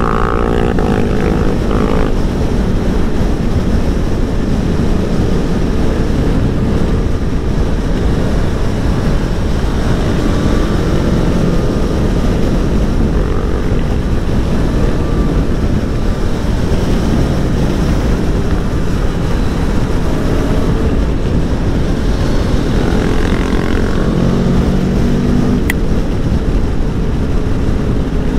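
Aprilia Tuono V4 1100 motorcycle being ridden at speed, its V4 engine note mixed with steady wind rush on the mic; about 23 seconds in the engine pitch shifts briefly.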